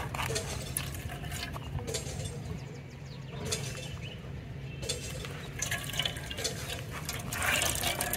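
Coconut milk trickling and splashing into a stainless steel bowl as wet blended coconut is squeezed by hand through a plastic sieve. It eases off for a couple of seconds in the middle and picks up again near the end.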